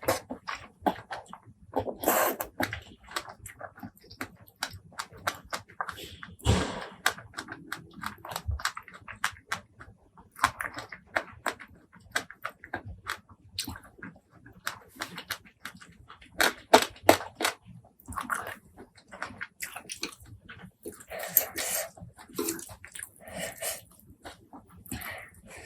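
Close-miked eating: crunchy bites and wet chewing, a dense run of short sharp clicks and crackles with a few longer noisy smears.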